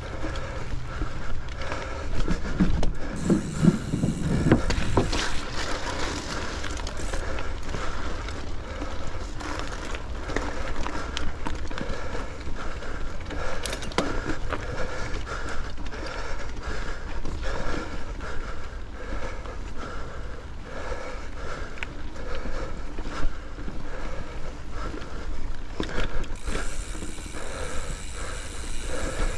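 Mountain bike riding over dirt singletrack: tyres rolling on the trail with the bike rattling and knocking over bumps, steady throughout with a heavier rumble a few seconds in.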